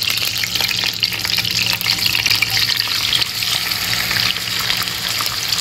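Pieces of goat liver, heart and kidney dropped into very hot oil in a non-stick frying pan, sizzling and crackling steadily. This is the sound of oil hot enough to seal in the liver's moisture and keep it soft.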